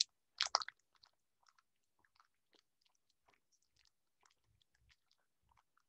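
Faint crinkling and rustling of foil trading-card booster-pack wrappers being handled and torn open, in scattered small crackles. A brief louder rustle comes about half a second in.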